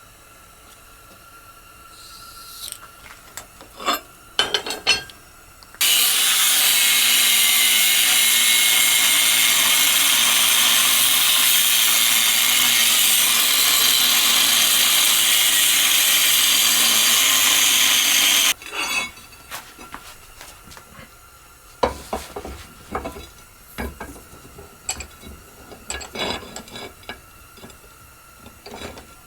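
Angle grinder cutting a groove into a steel plate: a loud, steady grinding that starts suddenly about six seconds in and stops suddenly about twelve seconds later. Light knocks and clanks of handling the metal plate come before and after it.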